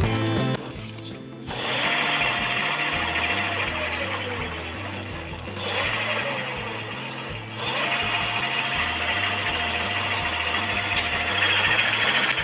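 Electric bike's rear hub motor whirring as the raised rear wheel spins under throttle, starting about a second and a half in; its whine rises, sags and drops away twice before holding steady, with a mechanical rattle from the chain and drivetrain.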